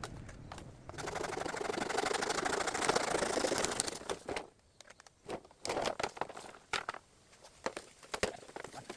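Bamboo leaves and branches rustling for about three seconds as they are handled or dragged, then scattered sharp crackles and snaps of dry twigs and debris.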